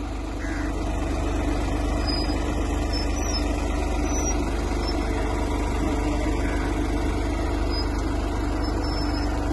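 Tractor engine running steadily as it pulls a potato planter across a field.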